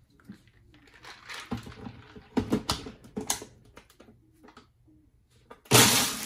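Plastic clicks and knocks as a blender pitcher is set and locked onto a Ninja Professional blender base. Near the end the blender motor starts with a short, loud burst, chopping ice with the coffee mix.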